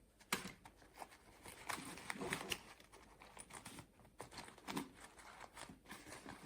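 Fabric bag being handled: irregular rustling of the cloth with scattered light clicks.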